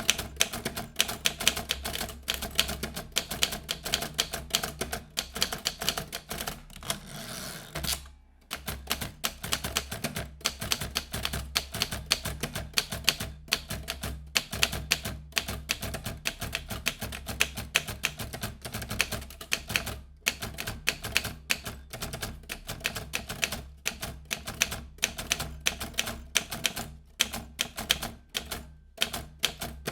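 Typing on a vintage typewriter: a quick, uneven run of key strikes, several a second, broken by a short pause about eight seconds in.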